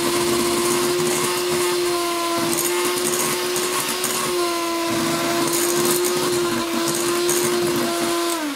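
Electric hand mixer running at a steady speed, its beaters stirring flour into a whipped-egg sponge batter; the motor is switched off and winds down near the end.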